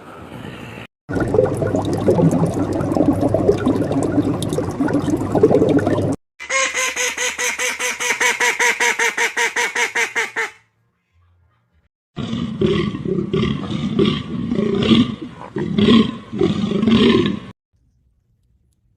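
Animal calls in separate spliced clips: a low, rough call lasting about five seconds, then a rapid, evenly pulsing call for about four seconds, and after a short silence another bout of calls that stops suddenly.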